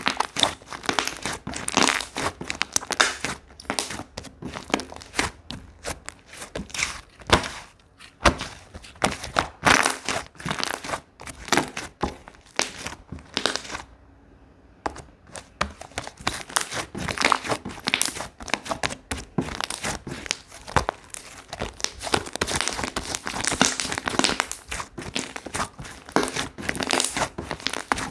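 Hands squishing, stretching and poking slime, making dense, irregular crackling and popping clicks, with a short pause about halfway through.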